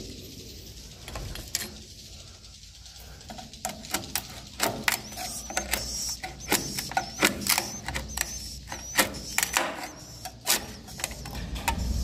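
A metal scraper working along a wooden swiftlet nesting plank, scraping off nests and leftover nest material in a run of sharp, irregular scrapes and clicks that starts about three and a half seconds in and stops about a second before the end.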